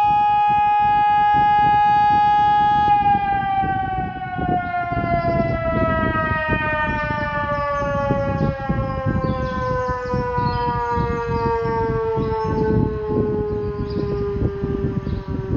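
SES 600 siren sounding a steady tone for about three seconds, then sliding slowly and evenly down in pitch as it winds down, still sounding at the end. A rumbling noise runs underneath.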